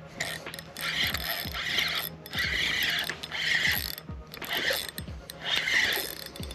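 Fishing reel being cranked in repeated bursts of about a second each, its gears whirring, as a small snook is reeled in on the line.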